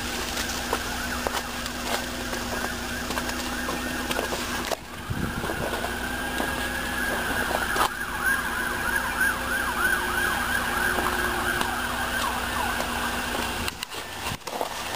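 Emergency-vehicle siren sounding off-screen. About five seconds in it rises in a wail, then turns into a fast up-and-down yelp, over a steady low hum.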